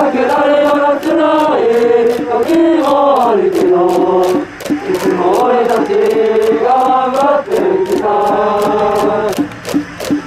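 A high-school baseball cheering section of boys singing a cheer song in unison. The song runs over a steady beat of about three strikes a second.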